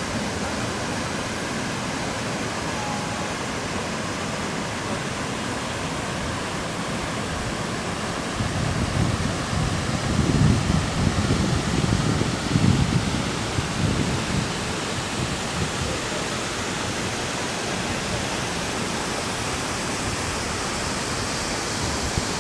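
Waterfall rushing in a steady roar, with a louder low rumble rising and falling in the middle.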